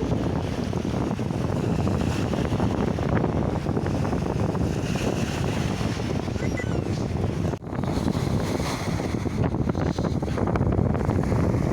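Wind buffeting the microphone over the wash of sea waves: a steady, heavy rumble of noise, broken by a momentary dropout about two-thirds of the way through.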